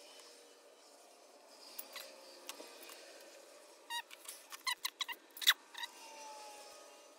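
A small T15 Torx screw being turned out of a turbocharger's bearing housing with a bit driver. A few faint clicks, then from about four seconds in a quick run of short squeaks and sharp clicks from the driver and the screw.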